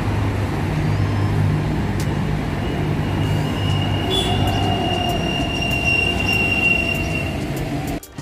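Dubai Metro train running, a steady rumble with a low hum, and a thin high wheel squeal from about three seconds in that fades out about four seconds later.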